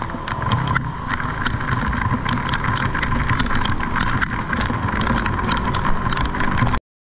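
A vehicle engine running steadily with a low rumble, a steady whine and scattered clicks, cutting off abruptly near the end.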